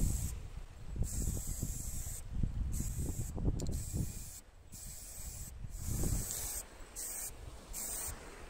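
Aerosol spray-paint can hissing in bursts: two long sprays, then shorter, quicker ones toward the end, over a low rumble.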